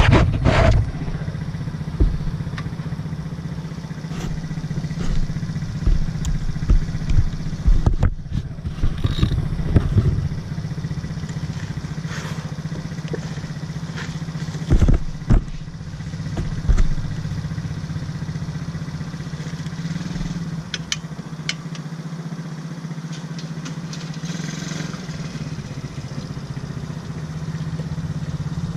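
Socket wrench threading and tightening an ATV's oil drain plug: scattered metal clicks and clanks over a steady engine drone.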